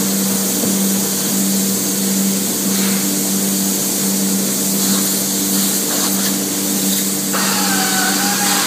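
Spray foam gun hissing steadily as it sprays polyurethane foam insulation into a hot tub cabinet around the plumbing, over a steady low hum from the foam rig's pump. A wavering whine joins about seven seconds in.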